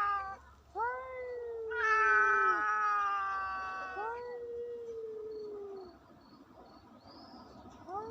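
Two cats caterwauling: long drawn-out yowls, each rising at the start and then slowly falling in pitch, the second starting before the first has ended, then a third after about four seconds. About six seconds in there is a short lull before another yowl begins near the end.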